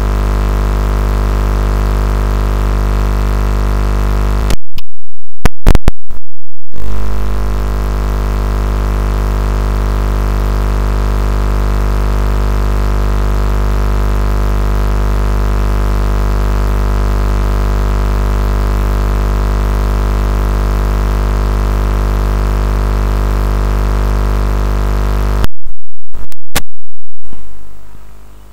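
Steady, unchanging electronic drone with a deep hum. It breaks twice into brief loud distorted glitches, about five seconds in and again near the end, then drops away.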